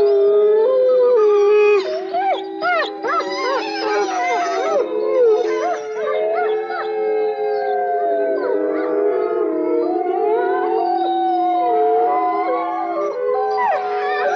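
A pack of wild canines howling in chorus: several long howls overlap and hold at different pitches, with short yipping calls breaking in during the first few seconds and again near the end.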